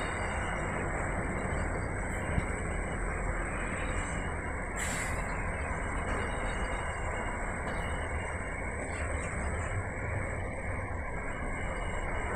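Intermodal container freight train passing, its wagons rolling by with a steady, continuous rail noise. A brief sharper noise rises out of it about five seconds in.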